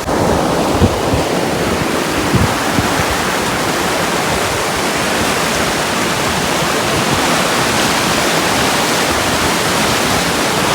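Loud, steady rush of a mountain torrent, with a couple of brief low bumps in the first few seconds.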